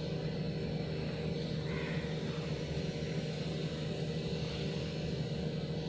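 A steady low mechanical hum at a constant pitch, unchanging throughout.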